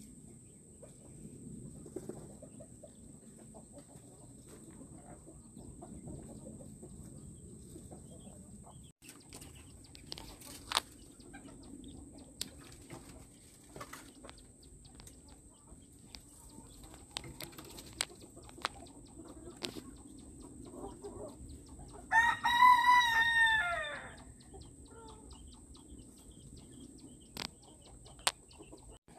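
A rooster crows once, about two-thirds of the way through: one loud call of about two seconds that rises and then falls away at its end. Around it are soft rustling and a few scattered sharp clicks.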